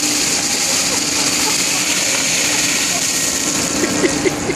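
Ice bucket challenge water pouring down from overhead, splashing over a seated man and onto a steel ship's deck. A steady low machinery hum runs underneath.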